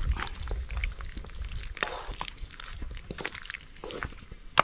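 Spoon clicking and scraping against a cooking pan in scattered light taps, with one sharp click near the end, as a sauce thickened with flour is stirred to keep it from clumping.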